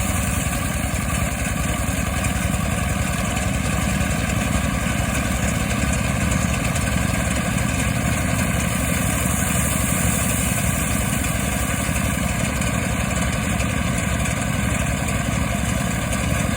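Mobile rice-threshing machine running steadily, a loud, unbroken engine-driven din that holds the same speed throughout.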